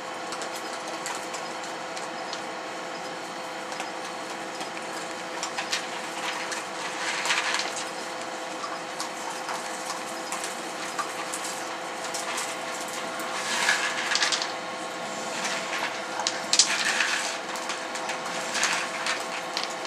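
Raccoons crunching and chewing dry dog food kibble, with scattered clicks and louder bouts of crunching about seven, fourteen and seventeen seconds in, over a steady background hum.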